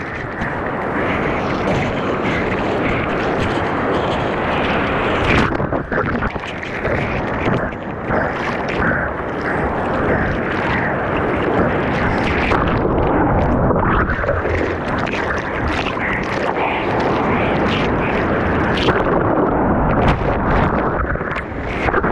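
Breaking surf and churning whitewater splashing over a camera at water level as a surfer paddles out through a set. A loud, steady rushing runs throughout, with many sharp splashes.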